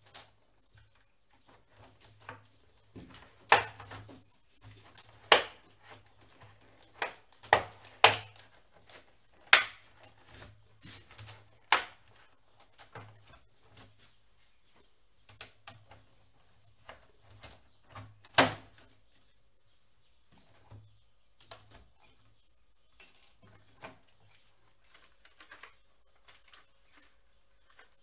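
Sharp plastic snaps and clicks as a plastic pry tool pops the latches of a Razer BlackWidow Ultimate keyboard's bottom case, irregularly spaced, the loudest over the first two-thirds, with lighter taps and handling noise between and after.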